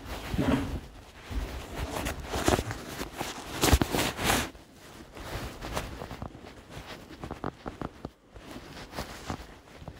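Irregular footsteps and scuffs in a derelict building, with a few louder knocks and crunches near the middle.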